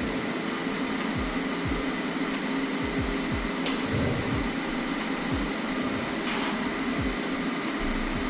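AC TIG welding arc on aluminum from an AHP AlphaTIG 201XD inverter welder, running steadily after the amperage has been turned up, with faint regular ticks a little over a second apart.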